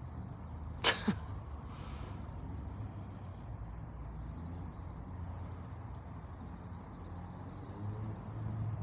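Outdoor background rumble in a pause of the drumming, with one sharp crack about a second in.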